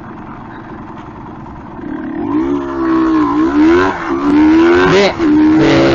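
1987 Yamaha DT200R's two-stroke single-cylinder engine running low, then revving up as the bike pulls away about two seconds in. The pitch climbs, drops back twice at the upshifts and climbs again, louder than at idle.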